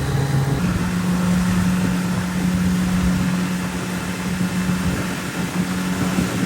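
Motorized watercraft engine running with a steady hum whose pitch steps up a little under a second in, under a continuous rushing noise of wind and water.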